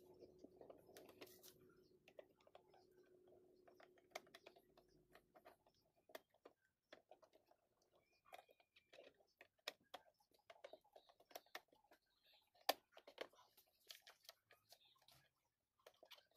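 Faint, scattered clicks and taps of hard plastic as a motorcycle helmet's visor side plates are handled and pressed into place on the shell. A faint steady hum stops about five seconds in.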